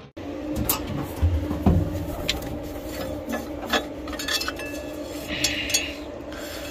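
A combine's engine-oil dipstick being handled and drawn out of its tube: scattered clicks and metal knocks, with a short scraping rasp about five seconds in, over a steady low hum.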